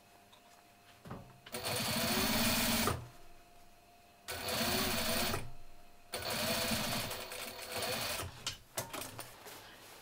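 Sewing machine stitching through quilted fabric in three short runs, each one to two seconds long, stopping between them. A few light clicks follow near the end.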